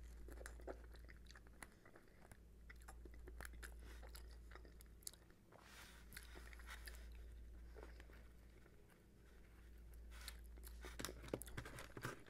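Faint, close-miked chewing of a sauced chicken wing, including its cartilage, with small wet mouth clicks and crunches. The clicks come thicker near the end. A steady low hum runs underneath.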